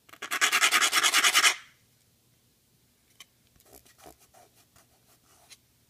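Ballpoint pen tip scraped hard back and forth across a melamine-faced board in rapid strokes for about a second and a half, testing the laminate's scratch resistance. A couple of seconds later come fainter rubbing and light ticks as a thumb wipes over the scratched spot.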